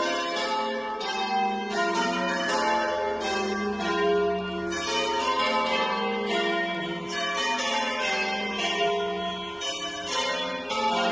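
Church bells being rung in changes: a steady run of overlapping strokes, about two a second.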